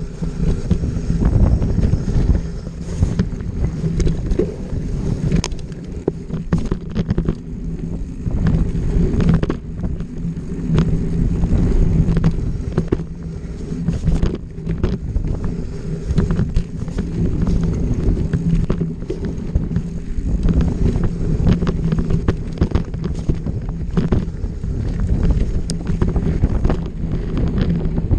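Wind buffeting the microphone during a fast trail ride, with many small knocks and rattles from the ride over rough ground.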